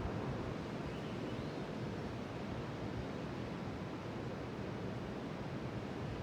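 Pacific Ocean surf: a steady, even wash of waves.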